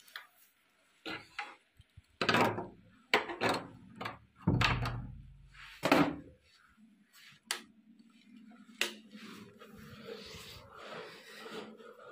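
Handling noise from a handheld phone being moved about: about nine irregular knocks and bumps with rubbing, the loudest about halfway through with a low thud, then a faint steady low hum in the last few seconds.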